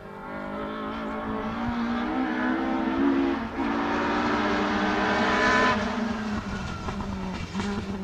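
Ford Escort rally car engine under hard acceleration, drawing closer and louder, with a drop in pitch at an upshift about three and a half seconds in. It is loudest near the middle, then fades as the car goes away.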